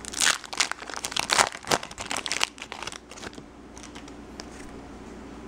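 Plastic wrapper of a baseball trading-card pack crinkling as it is torn open by hand: a dense run of crackles through the first three seconds, then they die away.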